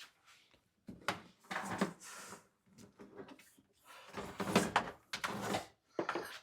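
Irregular clunks, knocks and rustles of gear being handled in a small enclosed space, with the loudest clusters about a second in and again around four to five seconds in.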